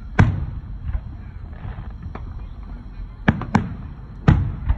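Aerial firework shells bursting: a sharp boom about a quarter second in, two more in quick succession just past the three-second mark, and another near the end, each trailing off in a low rumble, with fainter pops between.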